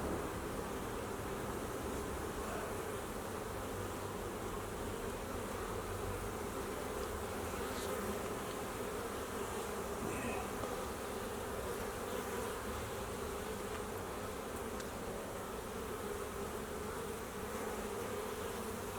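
Honeybee colony buzzing at an opened hive: a dense, steady hum of many bees that holds even throughout.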